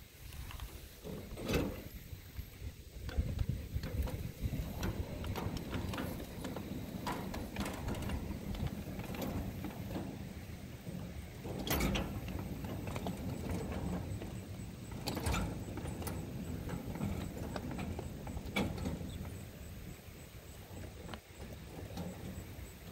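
Large-scale model freight cars rolling on steel rails: a steady low rumble of the wheels, broken by sharp clicks and clanks every few seconds as the wheels cross rail joints and the switch.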